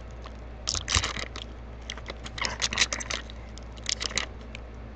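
Yu-Gi-Oh! trading cards being flipped and slid against one another in hand, giving short bursts of crisp clicks and rustles, three bursts in all.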